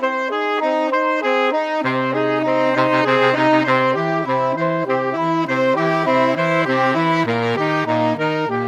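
Background music: a quick melody of short stepped notes, joined by a bass line about two seconds in.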